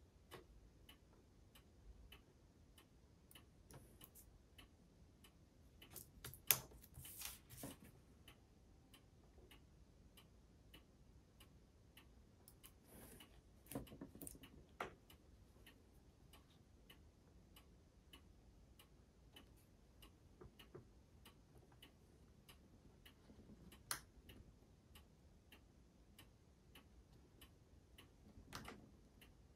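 Faint, steady ticking, about two ticks a second, typical of a clock in the room. A few louder rustles and taps come as a thin clear plastic sheet and a craft knife are handled on a cutting mat, the loudest about a quarter of the way in.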